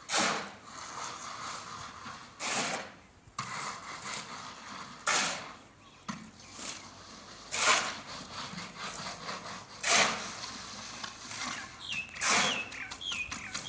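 Repeated scraping strokes, one about every two and a half seconds, with a few short high chirps near the end.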